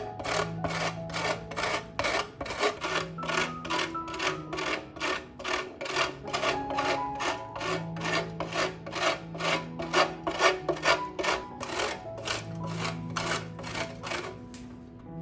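Rhythmic scraping or rubbing strokes, about three a second, over soft background music with sustained notes.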